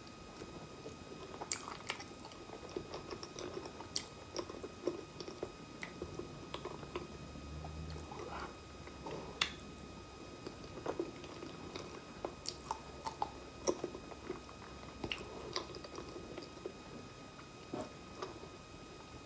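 Close-miked mouth chewing a soft ripe honey banana, with many small wet smacks and clicks of the lips and tongue. A low hum runs underneath from about six seconds in to about eight and a half.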